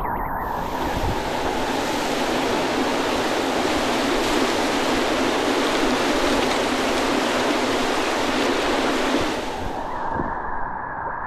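Whitewater river rapids rushing in a loud, steady wash of water noise. It sets in sharply about half a second in and fades to a duller rush about a second before the end.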